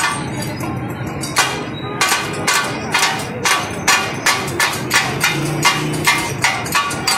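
Heavy steel katakat blade striking a flat steel griddle, chopping meat in a steady rhythm of about two to three ringing metallic clacks a second. A pause of about a second comes near the start.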